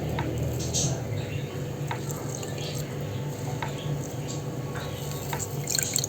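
Milky ground-nut-and-poppy-seed liquid dripping and trickling as it is strained, in irregular drips over a steady low hum.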